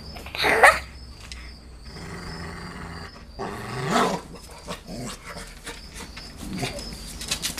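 A Cane Corso and a bulldog play-fighting and growling: one short loud outburst about half a second in, then low growls, the longest and loudest near the middle.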